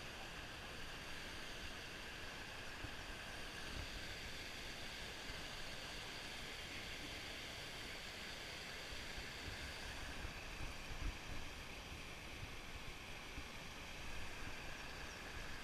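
Shallow creek water running over rocks and small riffles: a steady rush, with a few faint low thumps partway through.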